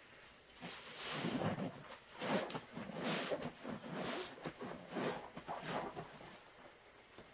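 Two wet sponges squeezed and scooped through thick cleaning-solution suds in a plastic tub: about six wet swishes, roughly one a second.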